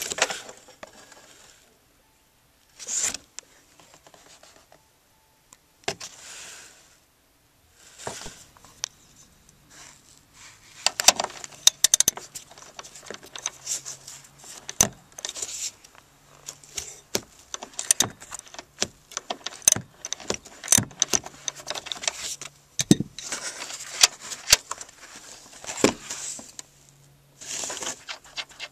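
Irregular metallic clicks and rattles as fingers handle the rear strut's upper mounting nuts on their studs. A few separate sounds with short quiet gaps come first, and then a busy run of clicks.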